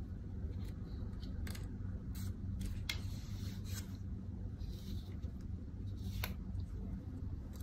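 Hands handling a small object, giving light rubbing and rustling with several short sharp clicks spread through, over a steady low hum.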